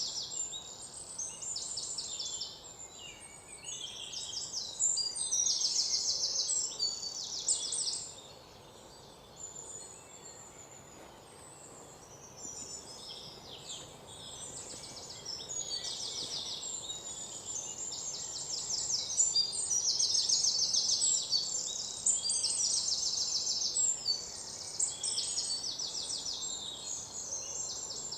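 Small birds chirping and twittering in fast, high-pitched trills, several voices overlapping, with a quieter lull about a third of the way through.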